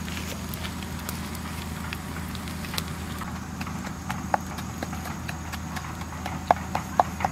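Wood fire crackling under fish grilling on a rack of sticks: scattered sharp pops that come more often and louder near the end, over a steady low hum.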